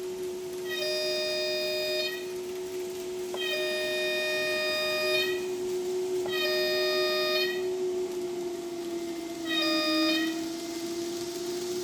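Kato Soundbox playing a simulated electric locomotive horn through its speaker: four blasts, the last one short, over a steady running hum.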